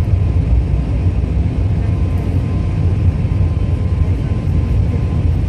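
Steady low rumble of a turboprop airliner's engine and spinning propeller, heard from inside the cabin while the aircraft rolls along the runway.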